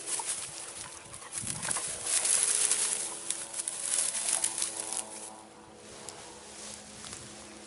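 Footsteps swishing and crackling through long grass, irregular and loudest in the first three seconds, dying down after about five seconds. A faint steady low hum runs underneath.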